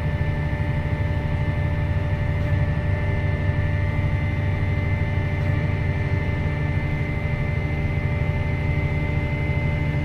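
Tractor engine running steadily, heard from inside the cab while pulling a grain cart: a dense low drone with a steady high whine over it.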